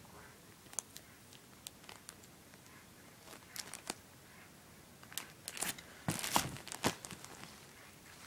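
Clear plastic packaging of a sticker sheet crinkling and crackling as it is handled, in short scattered crackles that are most frequent between about five and seven seconds in.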